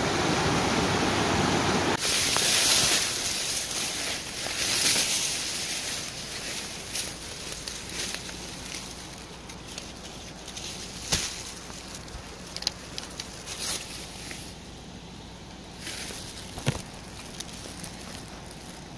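A small rushing stream that fades over the first several seconds, then rustling of grass and weed stems with scattered snaps and footsteps as someone pushes through streamside vegetation.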